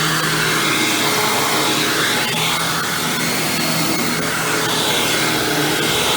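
Hoover WindTunnel Supreme upright vacuum with a chevron brush roll running steadily on carpet, its whine swelling and easing every couple of seconds.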